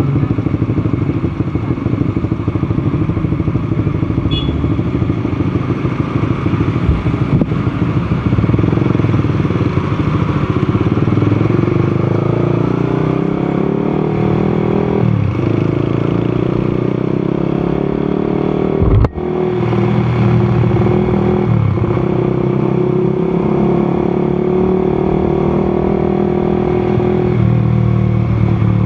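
Motorcycle engine running under way while riding, its note dipping and picking up again a few times, with a brief sharp break about two-thirds of the way in.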